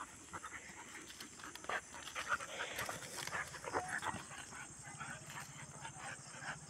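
A Labrador and a German Shepherd panting and scuffling over dry, leaf-strewn ground as they play with a stick. Short rustles and footfalls run throughout, and a low, fast-pulsing sound comes in near the end.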